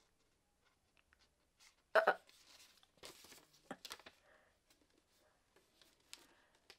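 Mostly quiet room with one short, sharp gasp of surprise about two seconds in. A few faint rustles or clicks follow, about four and six seconds in.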